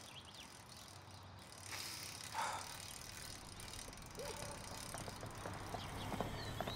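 A bicycle being wheeled along a pavement, with faint outdoor background and birds chirping now and then.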